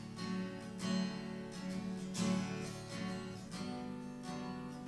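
Acoustic guitar strummed in a steady rhythm, a chord stroke roughly every three-quarters of a second, with no voice.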